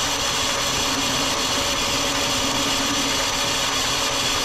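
Metal lathe running steadily while turning a small diameter on bar stock: an even mechanical whirr with a constant low hum underneath.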